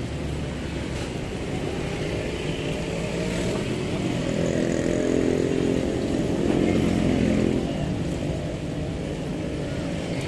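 A motor vehicle's engine runs past, swelling to its loudest around the middle and then fading. Under it is the steady sizzle of liver deep-frying in a pan of oil.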